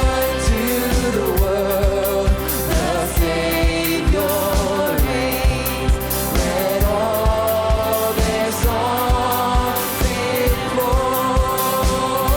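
Contemporary worship band playing with a lead singer, a kick drum keeping a steady beat of about two a second under bass and keyboards.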